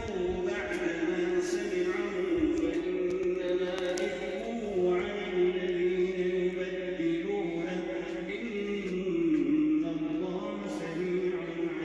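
Background vocal music: a voice chanting in long held notes, the pitch shifting slowly from note to note.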